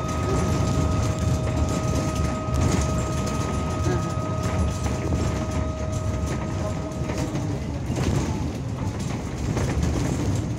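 Cabin noise of a MAZ-215 articulated city bus under way: the steady rumble of its diesel engine and tyres on the road, with rattling. A steady high whine runs through it and stops about seven seconds in.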